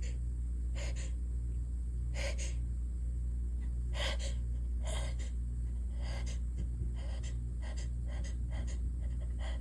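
A woman's short, sharp gasping breaths and sniffs, repeated at irregular spacing, as she holds back a sneeze with a stuffy, congested nose. A steady low hum runs underneath.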